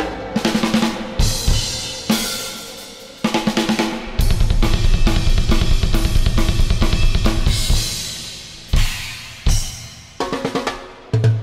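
Drum kit played freely in an improvisation: cymbal crashes ring out and die away, and a busy stretch of snare and bass-drum strokes fills the middle. Two more sharp crashes come near the end, then lighter hits.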